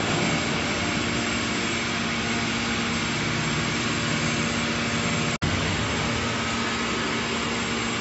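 Hydraulic power unit of a 400-ton scrap car baler running steadily: a constant hum and hiss with a few held tones as the hydraulics drive the baler's lid down over a car. The sound cuts out briefly about five and a half seconds in.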